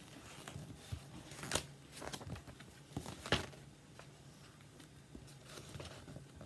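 Paper pages of a paperback picture book rustling as it is handled and turned, with a few short, sharp crinkles.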